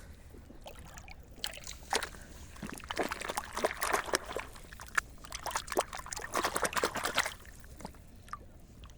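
Water splashing and trickling with many small clicks and knocks, in uneven bursts from about a second and a half in until about seven seconds in, when it stops.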